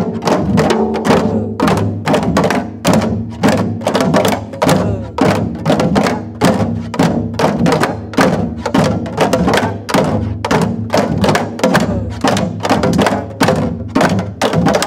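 Group of janggu (Korean hourglass drums) played together in a steady rhythmic cycle: sharp stick strokes on one head over deeper strokes on the other, repeating evenly several times a second.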